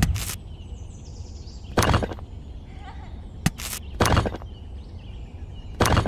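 Rough stones clacking as they are picked from a pile and set one at a time into a small metal toy trailer: about five short, sharp knocks of stone on stone and stone on metal.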